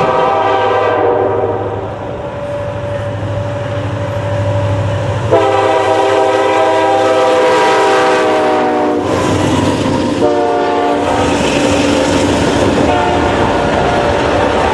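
Diesel locomotive air horn sounding the grade-crossing signal over the running train: a long blast dying away near the start, a long blast about five seconds in whose pitch sags slightly, a short blast, then another long blast near the end. Under the horn are the locomotive's low engine drone and the clatter of wheels on rail.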